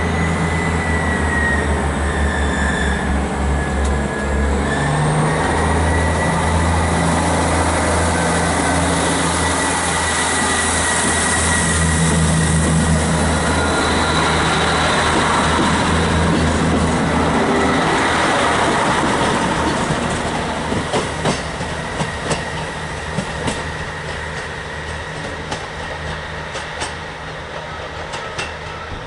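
Great Western Railway diesel multiple-unit train passing close: a low pulsing engine throb with a steady high whine over it. About two-thirds of the way in the sound begins to fade, and the wheels click over rail joints as the train draws away.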